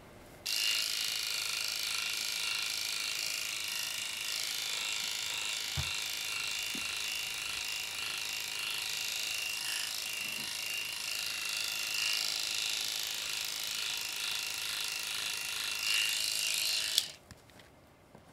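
Electric grooming clippers switched on about half a second in, running with a steady high-pitched hum, and switched off shortly before the end.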